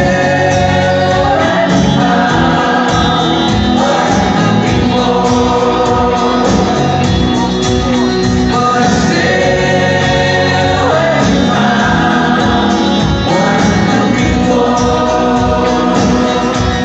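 Choir singing with a live band, electric guitar and drums. The music is loud and continuous.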